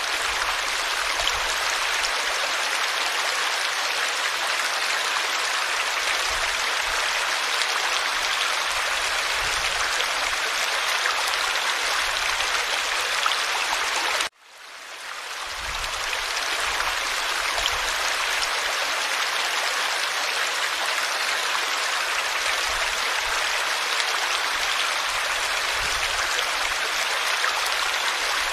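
Forest stream flowing, a steady rushing babble of water. About halfway through the sound cuts out abruptly and fades back in over a couple of seconds.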